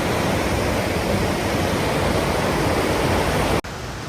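Loud, steady rush of a waterfall close by, an even wash of noise with no pitch. About three and a half seconds in it cuts abruptly to a quieter rush of water.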